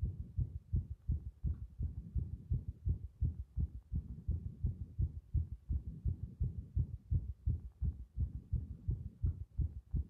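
Human heartbeat picked up through a stethoscope chest piece with a microphone clipped to it, with the chest being pressed on: a continuous run of low thumps, about two to three a second.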